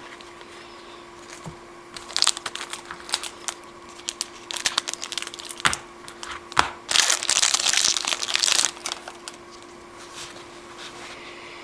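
Foil trading-card pack wrapper crinkling and tearing as it is opened, in irregular crackling bursts, densest about seven to nine seconds in.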